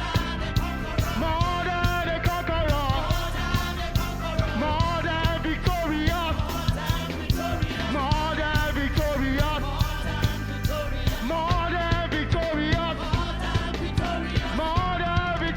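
Upbeat live gospel praise music: a band with a steady drum beat and voices singing a melody.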